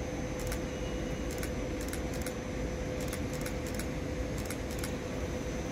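Train rolling slowly, a steady rumble and hum with about ten light, irregular metallic clicks.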